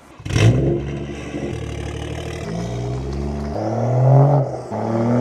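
A turbocharged BMW straight-six's exhaust under hard acceleration in a flyby. It comes in suddenly and loud, and its pitch steps up and down as it pulls through the revs.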